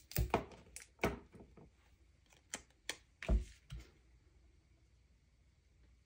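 Handling sounds of crafting on a glass craft mat: a handful of short taps and knocks over the first four seconds as a plastic liquid-glue bottle is set down and paper pieces are placed, the loudest a low thump a little after three seconds.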